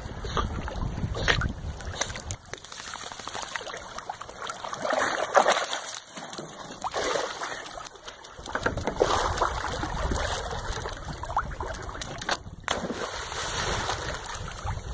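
Lake water splashing and dripping around a Pembroke Welsh Corgi as it swims, climbs out onto a wooden dock shedding water, and plunges back in, with wind rumbling on the microphone.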